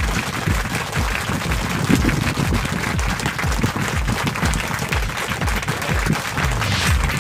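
Background music with a steady low beat and a dense, hissy, applause-like texture.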